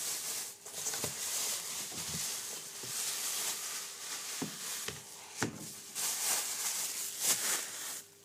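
Plastic bag rustling and crinkling as it is handled around a plastic food container, with a few light knocks. The rustling stops about eight seconds in.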